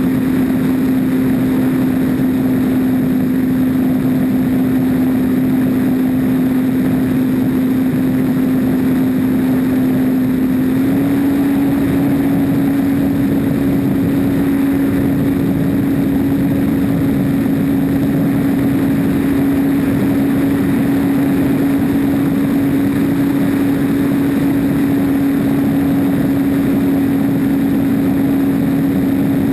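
RC airplane's motor and propeller running steadily, recorded from a camera on board the plane, with airflow rushing past. The propeller's hum holds one pitch and then steps up slightly about eleven seconds in.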